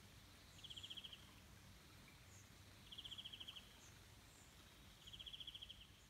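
Faint riverside ambience in which a small animal, insect or bird, gives a short, high, pulsed trill three times, each a quick run of about a dozen pulses, roughly every two seconds. A few fainter, higher chirps sound between them.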